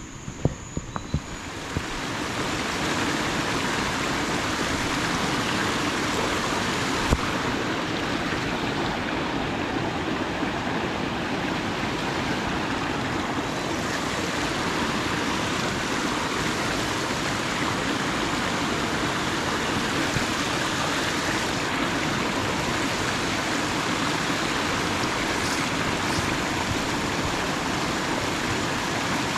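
River water rushing and splashing through a gap in a rock bank, a steady rush that swells up about two seconds in and then holds. A single sharp knock sounds about seven seconds in.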